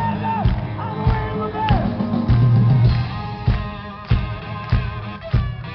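Live rock band playing: a singer's voice over electric guitar, bass and drums for about the first two seconds, then the band carries on with guitar and a steady drum beat.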